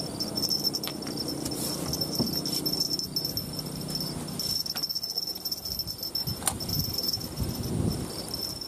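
Insects chirring: a steady high-pitched trill that breaks off and starts again every second or so, with a few faint clicks over it.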